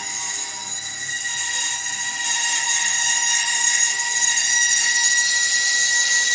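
Bandsaw running and cutting through a round block of wood, a steady high-pitched whine that grows a little louder about two seconds in as the wood is pushed into the blade.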